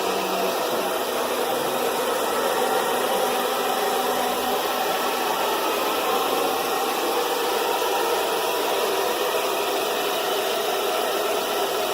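Handheld hair dryer running steadily: an even blowing hiss of motor and fan.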